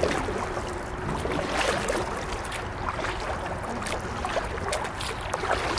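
Kayak paddling on calm river water: paddle blades dipping and splashing, with scattered light knocks and clicks against the plastic hull over a steady low rumble.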